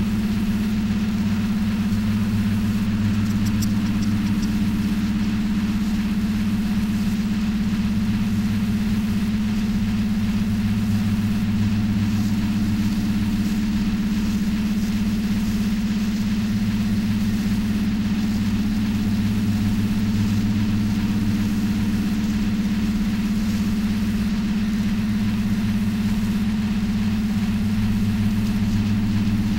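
Steady low electronic drone: ambient and industrial sound run through a mixer oscillator and a Korg analog synthesizer, holding one deep hum without change.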